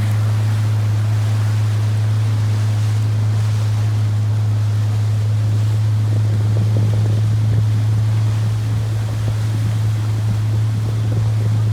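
Tour boat's engine running at a steady speed with a constant low drone, over wind and water noise.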